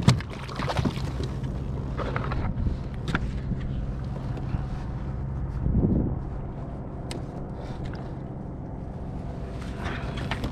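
A steady low engine hum, with a few sharp knocks and a brief louder rustle about six seconds in as a fish and a plastic measuring board are handled on a kayak.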